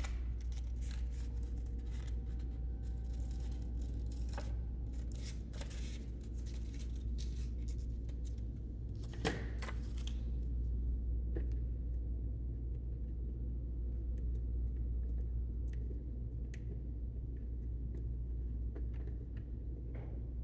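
Light scratching strokes and small clicks of drawing on paper, mostly in the first half, with one sharper click about nine seconds in. A steady low hum runs underneath.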